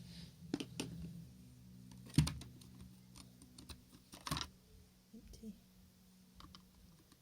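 Robot vacuum cleaner running with a low steady hum, while scattered plastic clicks and knocks sound from it being handled. The loudest knocks come about two and four seconds in, and the hum dies away about five seconds in.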